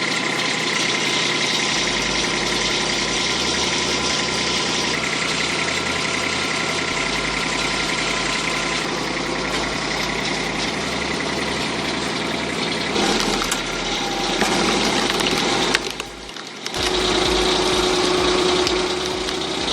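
Engine of working machinery running steadily. The sound shifts about two-thirds of the way through, dips briefly, then comes back as a steadier hum.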